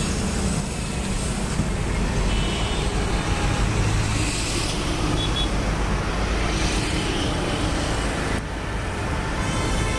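Street traffic noise: a steady rumble of passing motor vehicles, with a few faint, brief higher tones.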